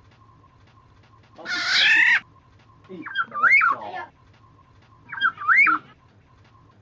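Black-naped oriole calling: one harsh, nasal call about a second and a half in, then two short fluty whistled phrases that swoop up and down in pitch.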